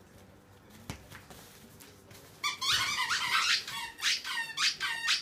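Squeaky dog toy being chomped by a dog, giving a rapid series of loud, high-pitched squeaks from about halfway through. A single knock sounds about a second in.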